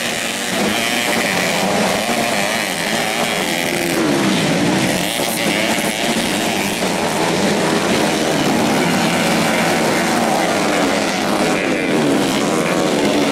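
Modified four-stroke 125 cc underbone motorcycles racing on a dirt track, their engines revving up and down as the riders work the throttle.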